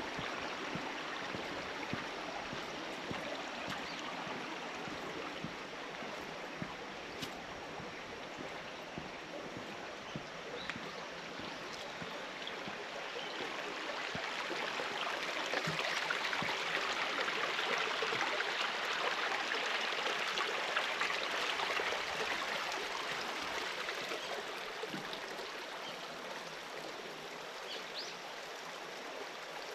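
Clear mountain stream babbling over rocks, growing louder for several seconds past the middle, then easing off.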